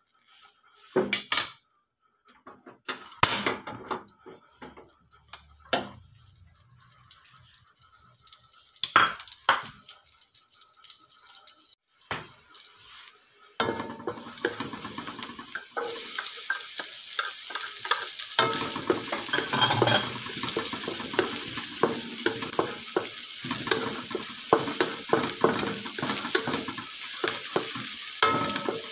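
Utensils knocking and clinking against a nonstick wok as oil heats, then, about halfway through, chopped garlic dropped into the hot oil starts sizzling steadily. The sizzle grows louder while a wooden spatula scrapes and stirs through the pan.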